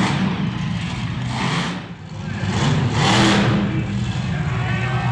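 Monster truck engine running hard under heavy throttle, surging twice as the driver stabs the gas, over a steady low engine note.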